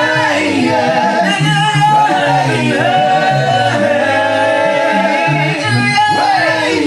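Vocal group singing in harmony: held chords over a stepping bass part, with a lead voice bending and sliding through wordless runs.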